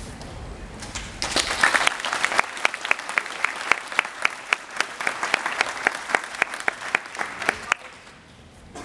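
Audience applauding, starting about a second in and dying away near the end, with one nearby pair of hands clapping sharply and evenly about four times a second over the crowd's clapping.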